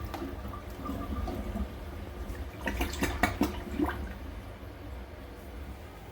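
Water running and trickling in a toilet after a flush, fading away, with a few clicks and knocks about three seconds in. The toilet is blocked and the flush does not clear the bowl.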